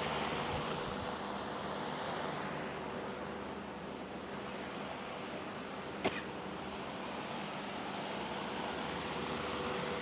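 Outdoor ambience: a steady hiss under a high, even insect chirring that pulses several times a second, with one short click about six seconds in.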